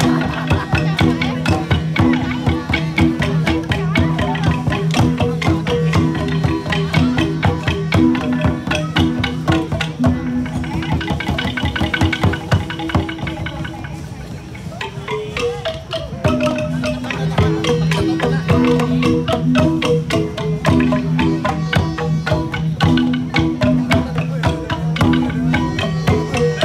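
Central Highlands gong ensemble playing a repeating interlocking pattern of several pitched gongs, with drum. It thins out briefly around the middle, then comes back in full.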